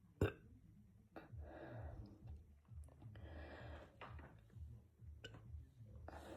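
A person breathing slowly in and out through the mouth, three breaths about a second long each, with a sharp click about a quarter-second in.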